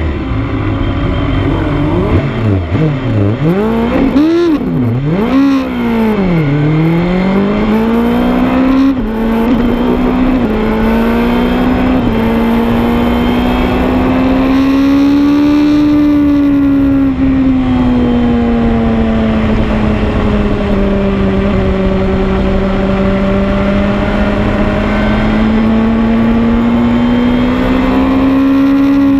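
BMW S1000RR inline-four engine heard from onboard, pulling away: the revs climb and drop sharply several times in the first seven seconds as it goes up through the gears. It then holds a steady, high pitch at speed that rises and falls only gently, over a rush of wind noise.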